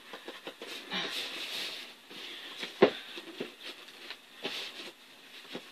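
Vinyl seat cover rustling and crinkling as it is pulled and stretched over the four-wheeler seat by hand, with small handling clicks and one sharp knock just under three seconds in.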